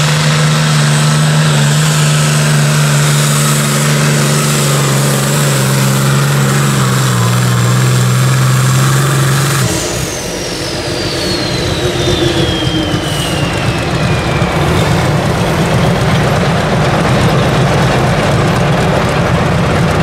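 A modified pulling tractor's engine runs flat out at steady revs under load, dragging the weight-transfer sled, with a high whine over it. About halfway through, the throttle is cut at the end of the pull: the engine note drops away suddenly, a whine falls in pitch over several seconds, and the engine settles to a rough idle.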